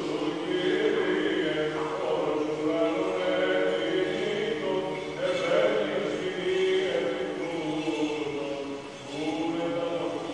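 Men's voices chanting Orthodox church chant: a slow melody sung over a steady held low note.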